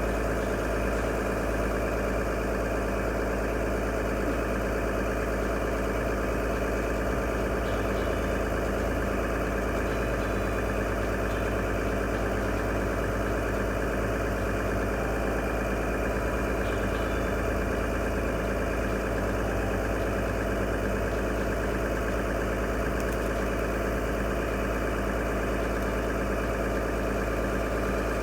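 A motor engine idling steadily at one even pitch, with no revving.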